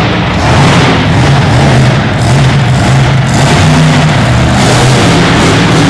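Monster truck engine running loud, revving up and down as the truck drives across the arena floor.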